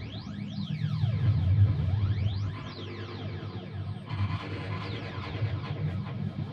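Noise music made with guitar effects pedals: a throbbing low drone with many crisscrossing rising and falling pitch sweeps over it. A denser hiss comes in about four seconds in.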